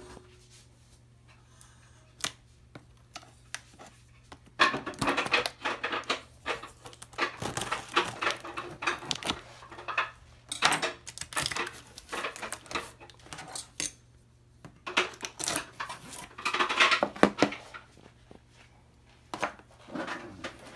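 A knife cutting and scraping through the tape and cardboard of a box in irregular strokes, mixed with knocks and rustles as the box is handled. It starts about four seconds in and has a few short pauses.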